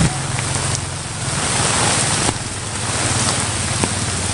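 Heavy rain pouring onto a paved street, a loud, steady hiss of water striking pavement with scattered sharper drop ticks. A low vehicle engine hum runs faintly underneath.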